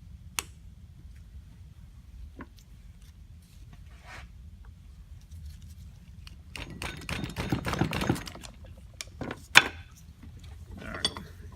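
Small metal carburetor parts being handled and set down: scattered sharp clicks and taps, with a longer clattering rattle about seven seconds in.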